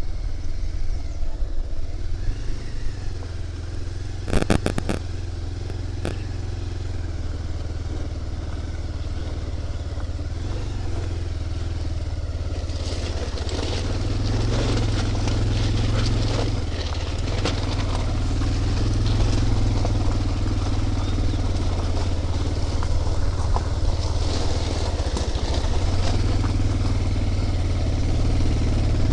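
Motorcycle engine running at low speed on a rough dirt road, with the tyres crunching and crackling over loose stones and gravel, more densely in the second half. A short cluster of sharp clicks sounds about four seconds in.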